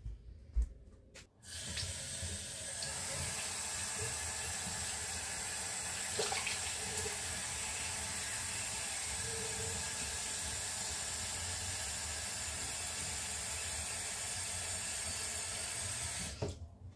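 Bathroom tap running steadily into the basin while someone washes their face, preceded by a thump; the water comes on about a second and a half in and shuts off sharply near the end.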